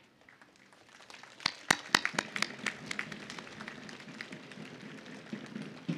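Audience applauding. It starts about a second in, with a few loud, sharp claps close by, then settles into steady clapping from the crowd.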